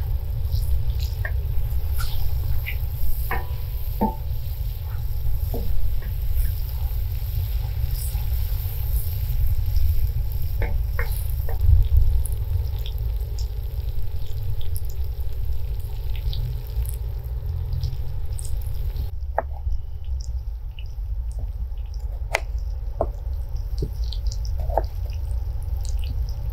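Potatoes and meat sizzling in a wide steel pan over a wood fire, with a wooden spatula scraping and tapping against the pan. About two-thirds of the way through, the sizzle cuts off and a few light knocks follow as tomato halves are set on a wooden board. A steady low rumble runs underneath throughout.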